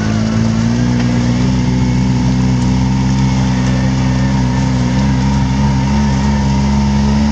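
Off-road vehicle engine running under load at steady, held revs, its pitch wavering slightly in the second half.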